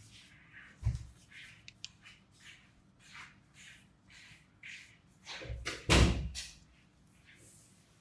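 Origami paper rustling and crinkling in short strokes as it is folded and creased flat by hand. A soft thump comes about a second in and a louder thump about six seconds in.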